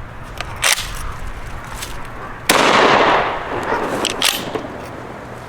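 A 20-gauge pump-action shotgun fires an old, crusty shell once, about two and a half seconds in, and the report fades away over a second or so. Short handling clicks come before the shot and once more soon after it.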